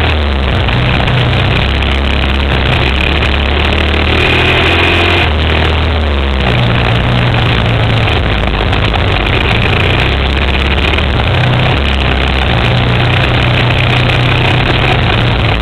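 Suzuki QuadSport Z400's single-cylinder four-stroke engine running under load as the quad is ridden through sand, its note rising and falling with the throttle, under a loud rush of wind across the microphone.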